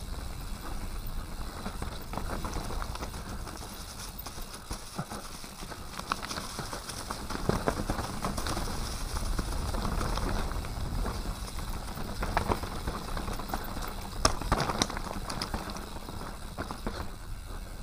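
Mountain bike riding down a dirt trail strewn with leaves and stones: tyres rolling over the ground and the bike rattling with scattered sharp knocks over rocks, loudest about twelve and fourteen seconds in. A steady low wind rumble sits on the microphone underneath.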